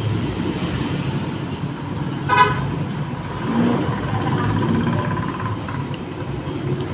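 Steady road-traffic rumble with a short vehicle-horn toot about two and a half seconds in.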